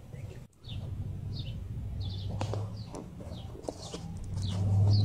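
Small birds chirping outdoors: short, high, quick downward chirps repeated many times. Under them runs a low hum that swells louder near the end.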